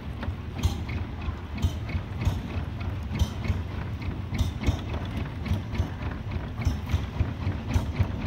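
Small wooden boat's engine running at low speed: a steady low chugging with a sharp rattling click roughly every second.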